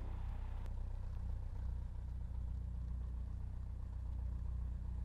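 Piper Cherokee Warrior's four-cylinder Lycoming engine idling at low power, a steady low drone heard from inside the cabin.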